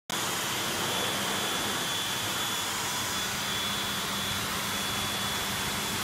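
Blow dryer running steadily: a constant rush of air with a low motor hum and a faint high whine.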